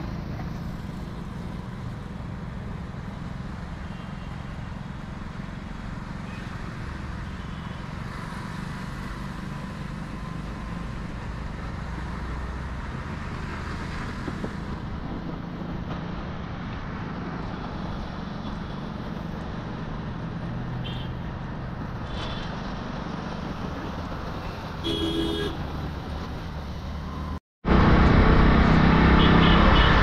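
Steady road-traffic noise heard while riding along a city road: engine and road rumble, with a vehicle horn honking briefly near the end. Just after the horn the sound drops out for a moment and comes back much louder.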